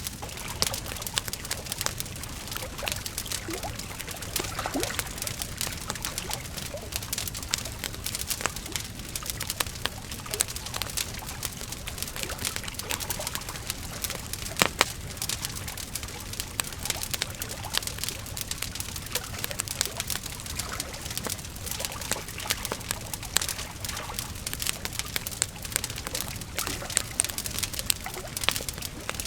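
Wood fire crackling: a dense run of small snaps and pops over a steady hiss, with one louder pop about halfway through.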